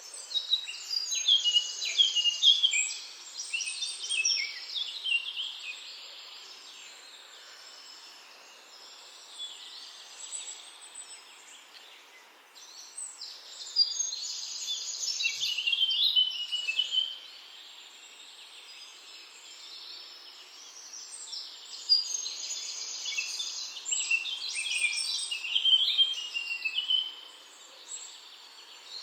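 Songbirds chirping and singing in three busy bouts of quick high chirps, with quieter stretches between, over a steady faint outdoor hiss.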